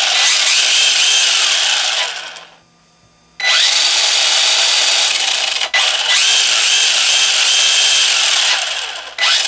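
Tamiya Avante Black Special 4WD RC buggy's electric motor and drivetrain spinning the wheels off the ground under throttle: a whirring whine that rises as it spins up, holds, then winds down. It runs twice, with a stop of about a second between the runs. The drivetrain is a little bit noisy but sounds healthy.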